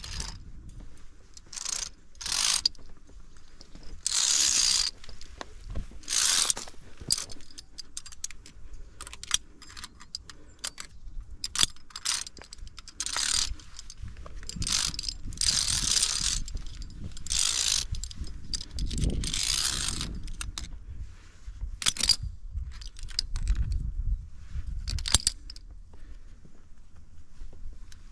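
Via ferrata lanyard carabiners (Edelrid Cable Kit Lite) scraping along the steel safety cable and clinking together. They come in repeated, irregular metallic bursts of about a second each, with a low rumble under some of them.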